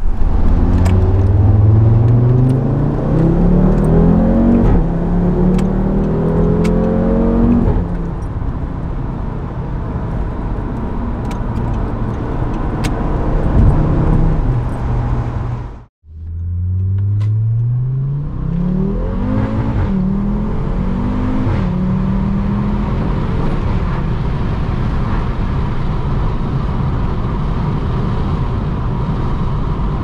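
Audi RS3 8P's turbocharged 2.5-litre five-cylinder, through a non-resonated Milltek 3-inch exhaust with secondary decats, accelerating hard past the microphone, the pitch climbing and dropping back at each upshift. After a brief cut it is heard from inside the cabin, pulling through two or three more quick upshifts and then running steadily at cruise.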